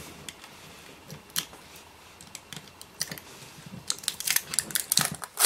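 Small hand tools working Kapton tape off an electronic instrument's circuit boards and ribbon cables: scattered light clicks, ticks and scrapes, coming thicker in the last second or so.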